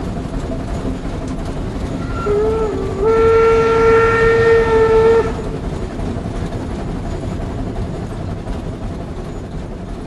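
Old steam locomotive running steadily, its whistle giving a short toot about two seconds in, then a long steady blast of about two seconds.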